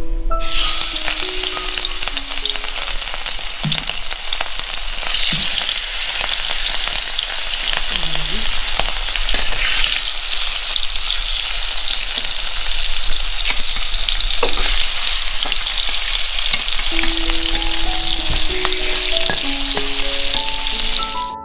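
Rui (rohu) fish steaks, rubbed with salt and turmeric, sizzling in hot oil in a kadai as they are shallow-fried. The sizzle starts suddenly about half a second in as the first piece goes into the oil, and it stays steady, with occasional clicks and scrapes of a spatula against the pan.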